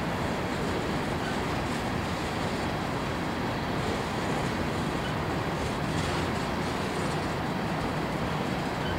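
Empty coal hopper cars of a freight train rolling steadily past: the continuous noise of steel wheels on rail.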